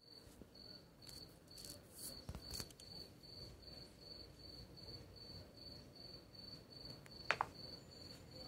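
Faint cricket chirping, one high chirp repeating evenly about two and a half times a second. A few light clicks come in the first three seconds, and a sharp double click about seven seconds in.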